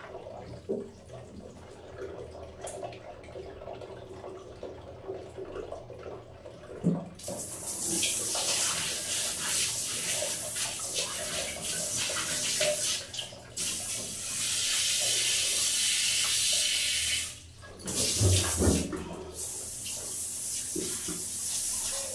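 Water dripping and trickling in a bathroom. About seven seconds in, it turns to a loud, steady rush of running water, which cuts out for a moment near the end and resumes with a couple of low thumps.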